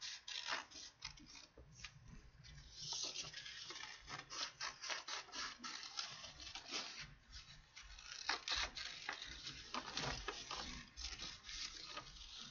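Scissors snipping through construction paper: a long, irregular run of short, crisp cuts, several a second, with a brief rustle of the sheet about three seconds in.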